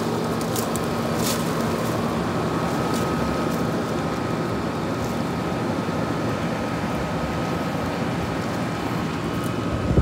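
Late-1960s Westinghouse 23,500 BTU room air conditioner running: a steady rush of fan air over a low compressor hum, with a thin steady whine on top. It is cooling, blowing cold air.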